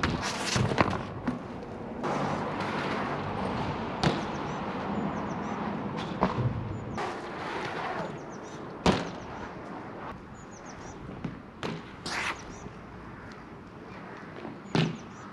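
BMX bike riding on a wet concrete skatepark: tyres rolling with a steady hiss, broken by several sharp landing impacts from hops on the banks, the loudest about nine seconds in.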